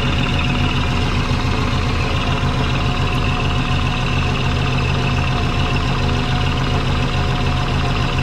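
Turbocharged Subaru flat-four boxer engine idling steadily with a fast, even low pulse. Its custom twin-turbo exhaust has leaks that the owner hears as chuffing.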